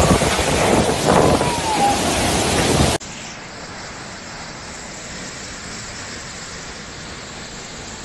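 Loud storm wind buffeting the microphone for about three seconds, then an abrupt cut to a quieter, steady rush of a flash flood's muddy torrent.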